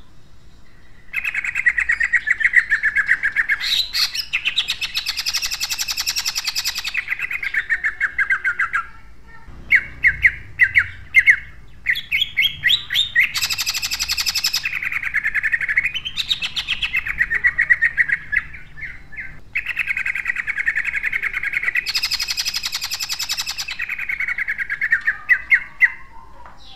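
Male green leafbird (cucak ijo) singing loudly in long rapid-fire phrases of fast repeated notes, with three harsher, denser stretches: the fast 'tembakan' (shooting) song prized in songbird contests.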